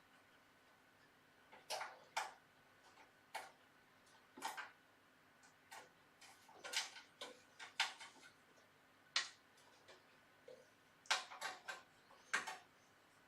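Irregular light metallic clicks and ticks, about a dozen spread unevenly, from an Allen key turning the screws and tapping against the metal parts of a desktop PC's case.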